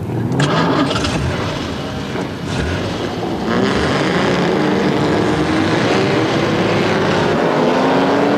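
Engines of a grid of Jaguar racing saloons started and revving, then several accelerating away together, their pitch rising steadily over the last few seconds as the field leaves the start.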